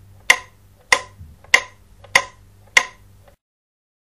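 A series of sharp, ringing struck hits, five of them evenly spaced a little over half a second apart, over a faint low hum; the sound cuts off suddenly a little past three seconds in.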